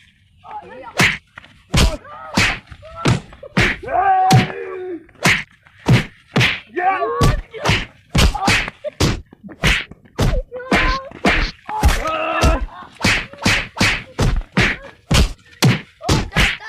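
A fast string of slap and punch hits, about two a second, with yelps and cries between the blows.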